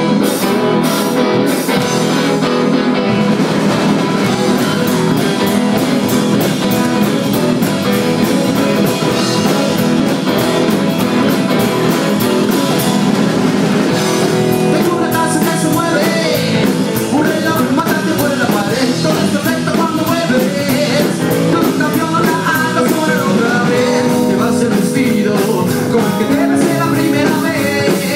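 A rockabilly band playing live: upright bass, hollow-body electric guitar and drum kit in a fast rock-and-roll beat, with a man singing lead.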